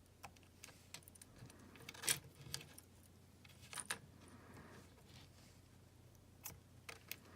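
Scattered small metallic clinks and taps from soldering work on a circuit board, the loudest about two seconds in and another near four seconds.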